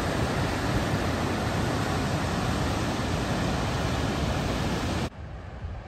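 Water released through Jackson Lake Dam's outlet gates rushing and churning white into the Snake River below, a loud, steady roar of whitewater. About five seconds in it cuts off suddenly to a much quieter hiss.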